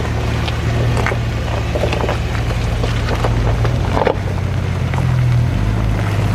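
Jeep engine running at low revs while driving off-road, with scattered knocks and rattles over it; the engine note shifts lower about five and a half seconds in.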